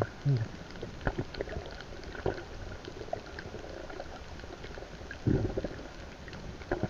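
Underwater sound picked up by a submerged camera in the sea: a steady crackle of many small clicks with gurgling, bubbly water noise, a few louder knocks, and a short muffled low sound about five seconds in.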